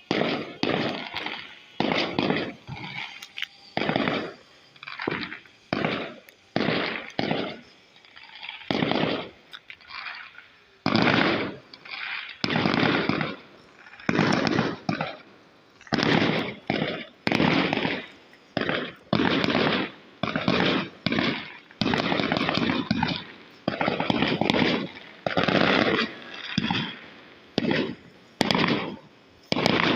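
Fireworks going off in a rapid, continuous barrage: sharp bangs about one or two a second, each fading over about half a second, some running together.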